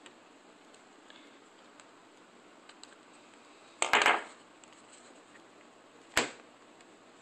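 Small sharp clicks and taps of a tiny Phillips screwdriver and fingers working at the screws in a phone's plastic housing: a short cluster of clicks about four seconds in and a single sharp click about two seconds later, over faint hiss.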